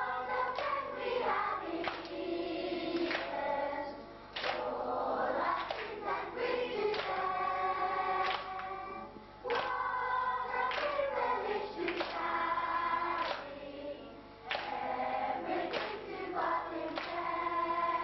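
A group of children singing a song together as a choir, in sung phrases separated by brief pauses.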